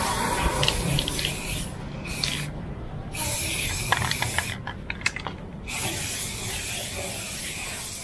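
Aerosol spray can of clear coat hissing in three long bursts with short pauses between them as it is swept over the parts.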